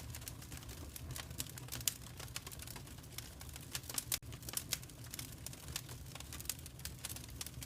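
Wood fire crackling: many irregular sharp pops and snaps over a steady low rumble of burning.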